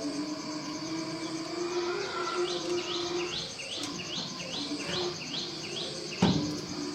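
A bird repeats a short rising chirp about three times a second over a steady high insect drone. A sharp knock a little before the end is the loudest sound.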